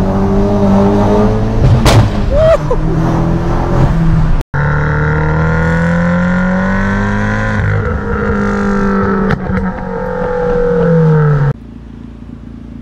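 Vauxhall Corsa VXR 1.6 turbo four-cylinders on loud exhausts. First one revving under acceleration from inside the car, with a sharp crack about two seconds in. Then another held at steady high revs, easing off just before the sound drops to a much quieter idle near the end.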